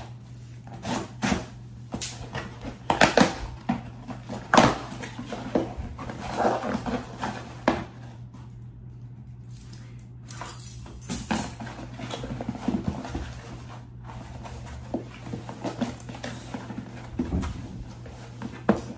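Cardboard shipping box being opened by hand: irregular rustling, scraping and knocking of cardboard and packaging, over a steady low hum.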